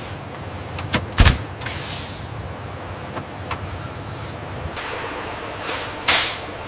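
Assembly-line machinery: two sharp mechanical clunks about a second in, lighter clicks around three seconds, and a short hiss like released air near the end, over a steady machine hum.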